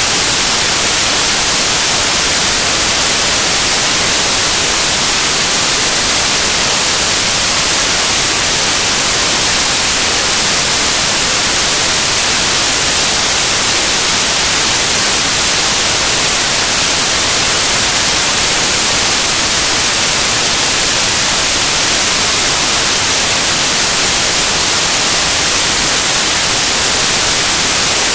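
Loud, steady static hiss, like white noise, with no change in level or pitch.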